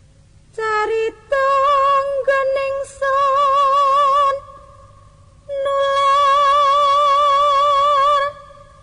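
Background music: a high, voice-like line holding long notes with a slow vibrato, in two phrases with a pause of about a second between them.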